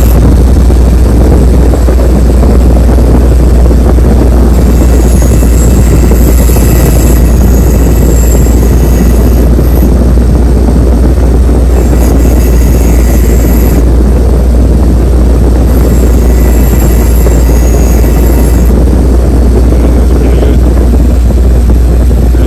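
Motor-driven wire wheel running steadily with a loud low hum as it scrubs corrosion off a thermostat housing. A higher scratching hiss rises and falls several times as the metal part is pressed against the spinning bristles.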